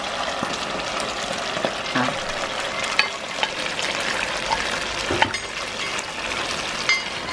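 Chicken and mushroom sauce sizzling steadily in a hot frying pan as cream is poured in, with a few light clicks of a utensil against the pan.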